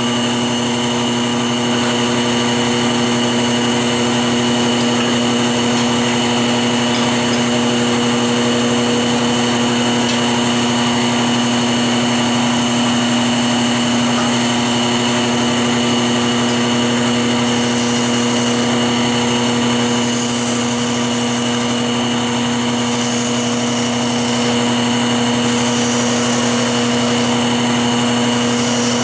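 Wood lathe running with a steady motor hum and whine, spinning a hickory workpiece. In the later part, a turning tool cutting into the spinning hickory adds short spells of higher hiss.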